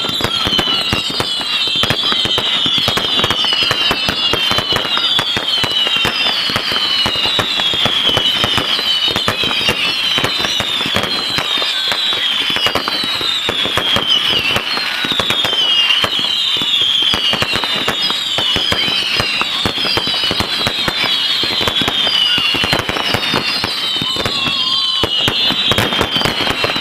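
Firework display: a continuous barrage of rapid bangs and crackling, with many overlapping high whistles that sweep down in pitch over and over.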